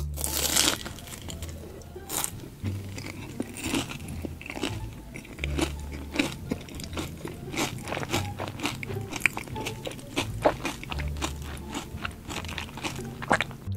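Close-miked crunching, biting and chewing of crisp silver-coated food, many sharp crunches in quick succession. Under it runs background music with a low bass line that comes and goes every few seconds.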